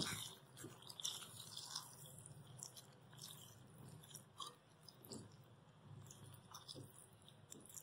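Faint, irregular soft clicks and scrapes of a red spatula stirring cooked chickpeas in oily masala in a metal pan.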